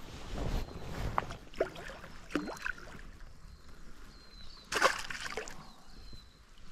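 Hooked brown trout splashing at the water's surface as it is played on a fly rod, with one loud splash about five seconds in and smaller splashes and rustles before it.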